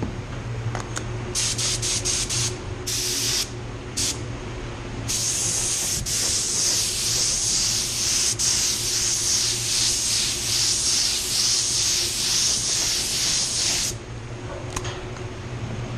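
Mini jet touch-up spray gun hissing with compressed air: a few short trigger pulls, then one steady spray pass of about nine seconds laying a light first coat of basecoat. The paint booth's ventilation hums steadily underneath.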